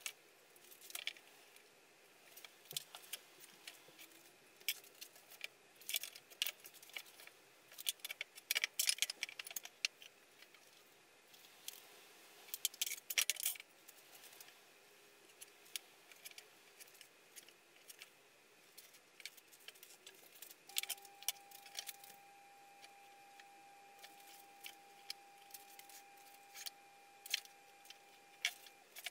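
Scattered light clicks, taps and metallic clinks of marking out timber by hand: a steel tape measure, a metal combination square and a pencil picked up and set down on a table saw top, with pine boards knocked and shifted. A faint steady high tone runs for several seconds in the second half.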